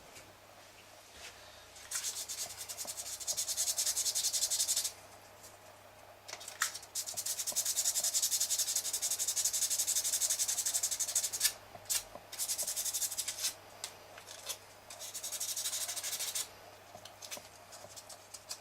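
Fine P600 sandpaper, wetted with water, rubbed by hand over the carved plastic iPhone dock: quick, even scratching strokes in four stretches of a few seconds each, with short pauses and a few sharp ticks between.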